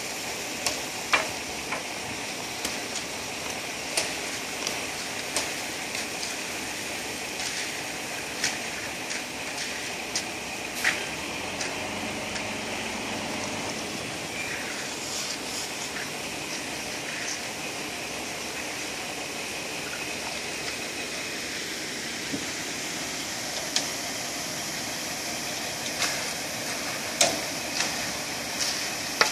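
Steady machine noise from a concrete pump running, with irregular sharp knocks and clicks from the work on the wet concrete.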